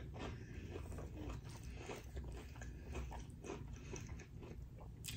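Close-up chewing of crunchy food with the mouth closed: a steady run of soft crunches, several a second. A sharper click sounds just before the end.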